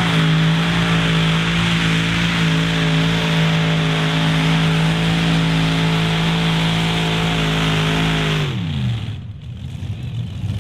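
Heavy Modified pulling tractor's multiple engines with open stack exhausts, held at a steady high rev under full load during a pull. About eight and a half seconds in, the revs drop away and the engines go quiet at the end of the pull.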